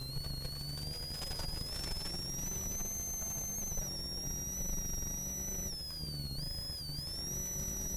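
Ford Sierra RS Cosworth's turbocharged four-cylinder engine at speed, heard from inside the cabin, with a high whine riding over the engine note. The whine holds fairly steady, drops briefly about six seconds in as the revs fall, then climbs again.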